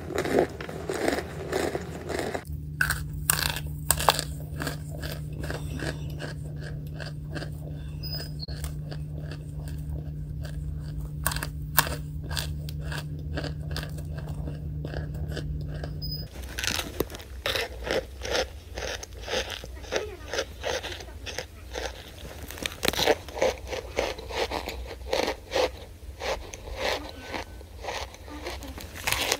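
Close-up mouth sounds of someone biting into and chewing hard, crumbly chunks: a long run of sharp, irregular crunches. Through the middle stretch a steady low hum sits under the crunching and cuts off suddenly about 16 seconds in.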